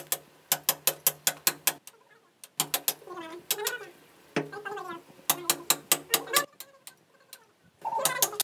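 Hand hammer striking a steel chisel, chipping into a brick and plaster wall in quick runs of several blows a second with short pauses between runs. A voice talks in a couple of the gaps.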